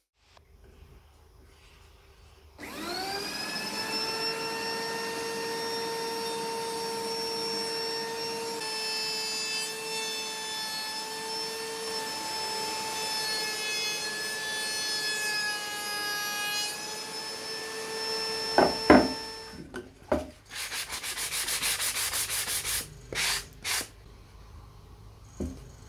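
A small electric power tool starts about two and a half seconds in, winds up to a steady whine and runs, then stops. A few sharp knocks follow, then a couple of seconds of rapid rasping strokes.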